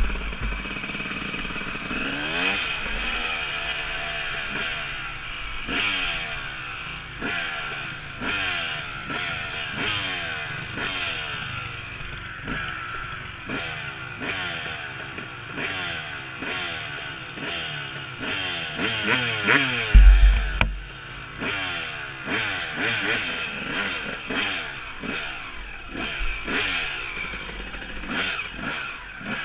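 Dirt bike engine revving up and easing off again and again, its pitch climbing in short runs as the rider works the throttle and gears over a rough trail. Knocks and clatter from the bumpy ground run through it, with one loud low thump about twenty seconds in.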